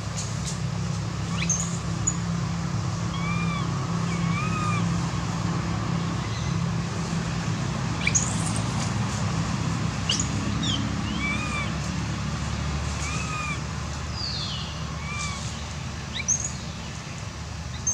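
Birds calling in a forest: short arching calls repeating about once a second, often in pairs, with now and then a sharp high falling chirp, over a steady low background rumble.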